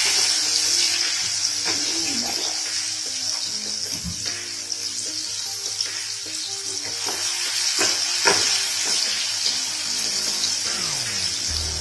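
Garlic paste frying in hot mustard oil in a kadai: a steady sizzle, with a spatula stirring and knocking against the pan a few times, around four and eight seconds in.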